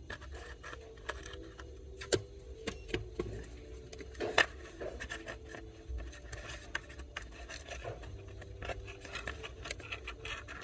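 Irregular small clicks, taps and scrapes of the iPod nano's circuit board being handled and moved on a metal work surface, with the sharpest taps about two and four seconds in.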